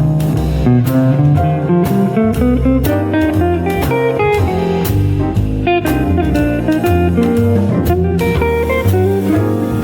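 Instrumental jazz music: a guitar playing the melody over a walking bass line, with drum strokes keeping time.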